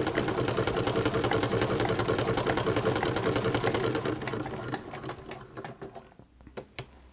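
A more-than-100-year-old Hexagon sewing machine, built by the Standard Sewing Machine Co., sewing a test seam through cotton at a fast, even stitching rhythm. About four and a half seconds in it slows and fades to a stop, with a few separate clicks near the end.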